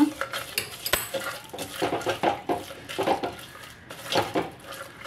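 Wooden spoon stirring thick mashed greens in a clay pot, in repeated scraping strokes against the pot's sides, with one sharp knock about a second in. The tempering is being mixed into the greens.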